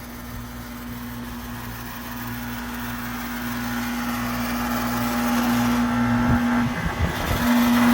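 Outdoor condensing unit of an R22 central air conditioner running: a steady electrical hum from the compressor with the rush of the condenser fan, growing louder, and a few low bumps near the end.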